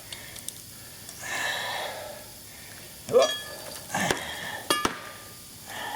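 Loose metal parts being handled and set down on a shop floor, with scattered knocks and scrapes and a sharp clink that rings briefly near the end.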